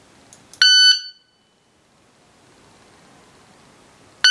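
Competition Electronics Pocket Pro II shot timer sounding its electronic start beep: a loud, high-pitched beep lasting about a third of a second, about half a second in, with a second beep beginning just at the end. The timer is running on a 9V battery held against its contacts by hand, and it is working properly.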